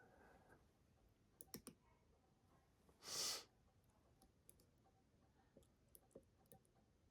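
Faint, scattered clicks of a lock pick and tension wrench working the pins of a Kwikset Smartkey padlock cylinder, with a short loud hiss of breath about three seconds in.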